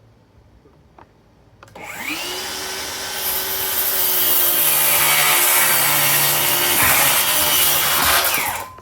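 DeWalt DCS573 brushless cordless 7-1/4-inch circular saw spinning up with a rising whine a little under two seconds in, then cutting through wood with a loud steady whine and hiss for about five seconds, and winding down near the end.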